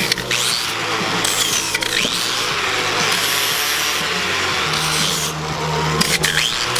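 Power tool with a sanding disc running against the metal shell of a car brake booster, scuffing off the old finish. The motor hums steadily under a harsh scraping that swells and eases as the disc is worked over the surface.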